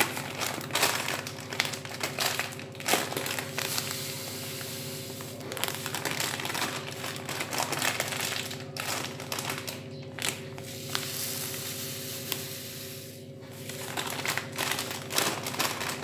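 Plastic sugar sachet crinkling and rustling as it is handled, in irregular crackly bursts over a steady low hum.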